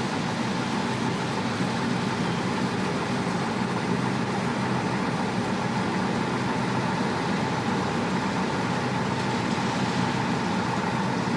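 Steady engine-like running noise with a constant high whine, unchanging throughout.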